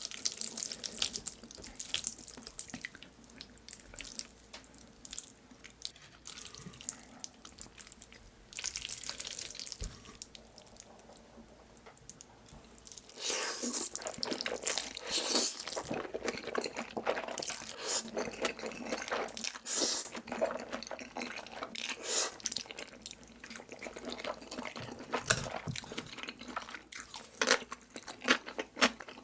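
Close-miked eating of Korean hot noodles: wet slurping and chewing with irregular mouth clicks and smacks, busier about halfway through.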